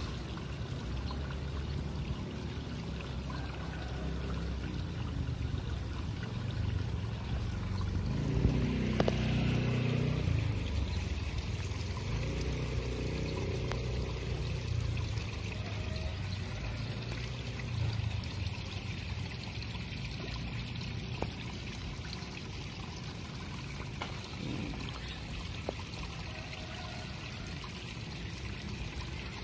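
Steady outdoor background of shallow canal water trickling, under a low rumble that swells for a few seconds about eight to twelve seconds in.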